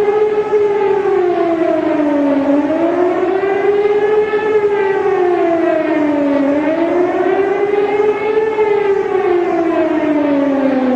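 Emergency alert siren wailing, its pitch rising and falling smoothly about every four seconds, then sliding steadily down near the end.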